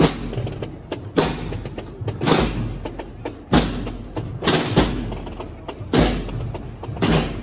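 Procession drums beating a slow, steady march, one heavy stroke about every 1.2 seconds.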